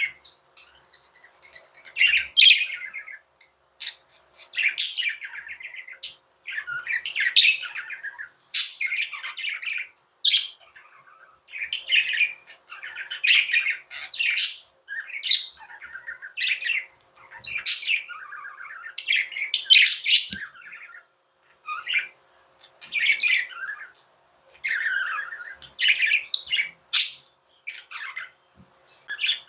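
Budgerigars chattering and warbling: a run of short, rapid twittering phrases with brief pauses between them.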